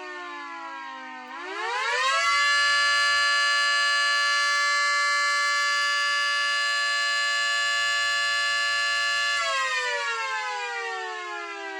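Miniature homemade replica of a Federal Signal 3T22A three-tone siren, sounding its multi-tone chord: it winds down, spins back up within about a second, holds a steady loud chord for about seven seconds, then winds down again. Full power, on balanced rotors.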